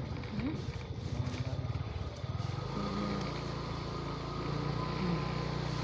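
Motor scooter's small engine running at low speed while riding slowly, the engine note settling into a steady low drone about three seconds in.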